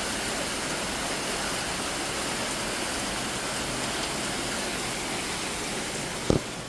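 Heavy tropical-storm rain pouring down in a steady, dense hiss, with one short thump near the end.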